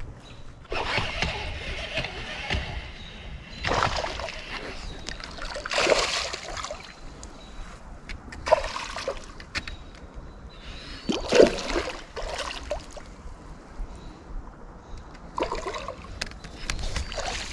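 River water splashing in several separate, irregular bursts.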